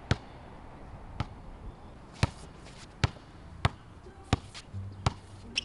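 Basketball dribbled on an outdoor hard court: about eight sharp bounces, roughly one every second, coming a little quicker near the end.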